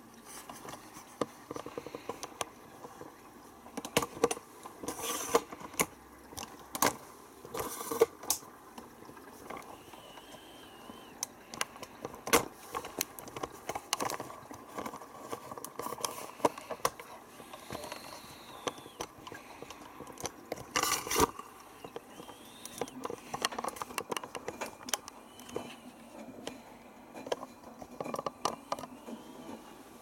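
Miele W487 front-loading washing machine early in its wash cycle, running as it fills and turns its drum with a single pair of jeans. It makes irregular clicks and several short, louder noisy bursts, with a few brief rising-and-falling whines.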